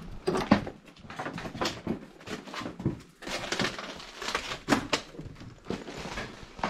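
Footsteps crunching and scuffing over rubble and broken ceiling debris, with a door pushed open. The crunches come irregularly, several a second.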